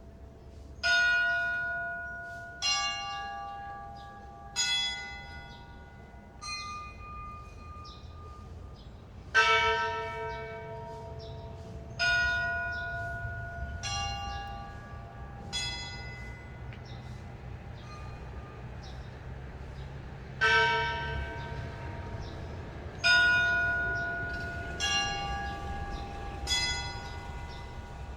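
Church bells rung one stroke at a time: about a dozen strikes on several bells of different pitch, at uneven intervals of roughly two to three seconds, each stroke ringing out and slowly fading. The loudest strokes fall about nine seconds in and near the end, over a faint steady low rumble.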